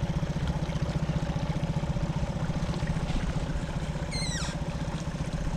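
Boat motor running steadily with a rapid, even low throb and a constant hum.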